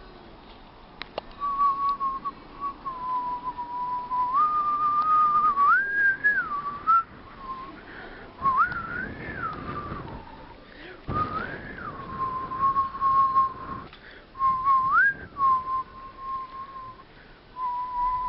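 A pure whistling tone, held in long steady notes with several slides up and back down and short breaks between phrases.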